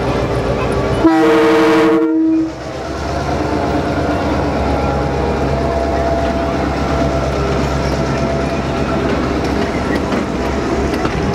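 Diesel locomotive horn sounding one chord for about a second, then the DBR-class diesel-electric locomotive's engine running with a steady low hum as it and its carriages roll past.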